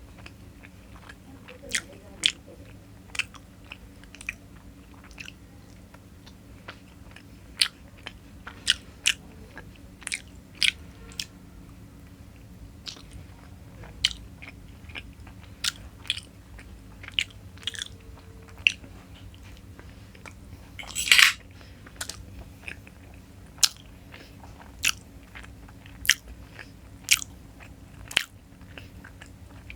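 Close-miked eating sounds of a person chewing Indian sweets: irregular wet mouth clicks and smacks, about one or two a second, with one louder, longer noisy sound about two-thirds of the way through. A faint steady low hum runs underneath.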